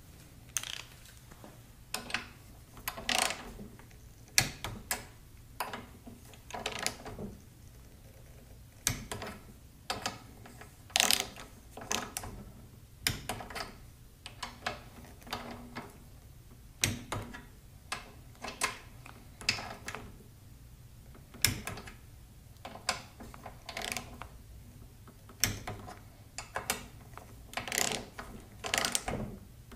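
Torque wrench ratcheting in short, irregular bursts of clicks while tightening the cylinder head bolts on a Briggs & Stratton L-head engine, on a first pass at half torque.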